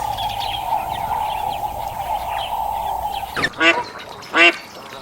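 A duck quacking twice, loud and short, in the second half. Before that there is a steady background hiss with faint chirps.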